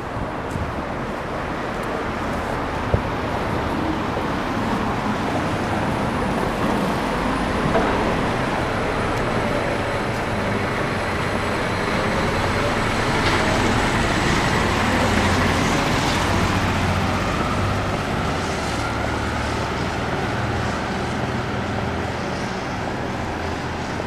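Road traffic on a city street: a steady rumble of vehicle engines and tyres that swells a little about two-thirds of the way through as traffic passes closer.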